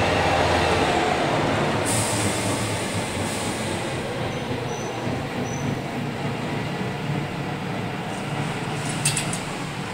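A train's steady rumble, slowly fading, with a brief click near the end.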